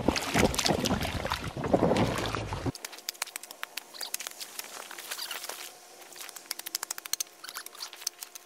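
Rubber boots sloshing and wading through an icy, slushy puddle, heard close up. About three seconds in it turns quieter, to a run of quick light ticks and small splashes as a metal bar probes the puddle.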